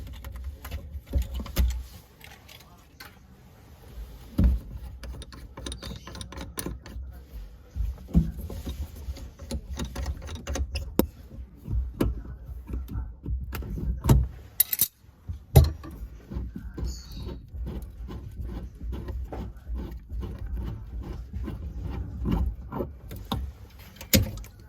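Clinking, clattering and knocking of metal tools and parts being handled, dozens of short sharp clicks over a low rumble of handling noise.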